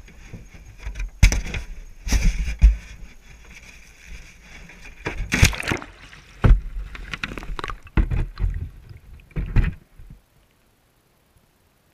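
Irregular knocks, scrapes and splashes as a wire-mesh minnow trap holding a GoPro is handled and lowered into a stream. The sound stops about ten seconds in, once the trap has settled underwater.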